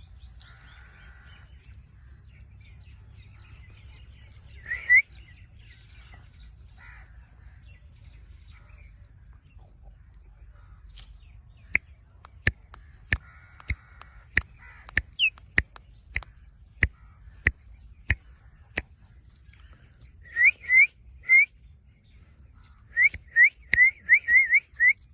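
Ringneck parakeet giving short, harsh squawks: one near the start, three in quick succession about two-thirds of the way in, and a rapid run of them near the end. In between comes a series of about a dozen sharp clicks, roughly one or two a second.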